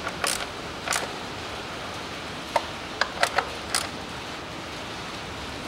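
Small ratchet and socket tightening the ignition-coil hold-down bolts: a handful of separate sharp metallic clicks, about seven, over a steady hiss.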